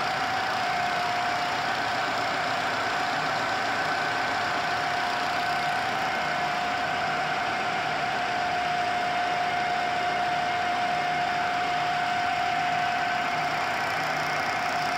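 GIDUE MASTER Combat flexographic label press running at a steady pace: an even mechanical hum with a steady high whine over it.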